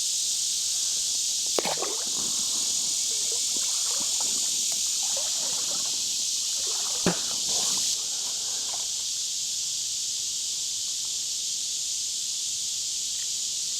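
A steady high-pitched drone of summer insects, with water sloshing and a few sharp clicks or knocks in the first eight seconds or so, as someone wades in a shallow creek.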